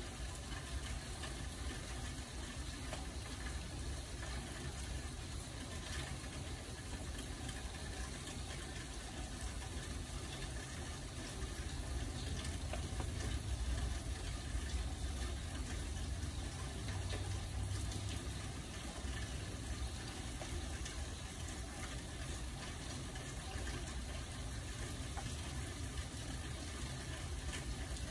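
Steady rain falling: an even, continuous wash of water noise with a low rumble underneath, swelling slightly about halfway through.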